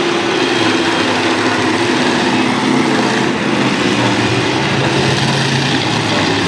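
Engines of several demolition derby trucks running together, a loud steady din whose pitch shifts up and down as the trucks drive around.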